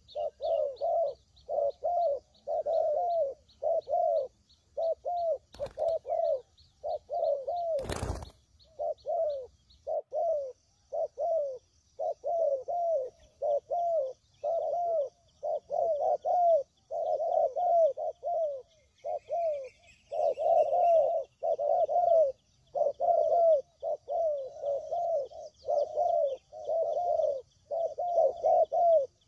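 Spotted doves cooing without pause, a run of short low coo notes repeated one after another. Faint high chirping runs behind, and a single sharp knock sounds about eight seconds in.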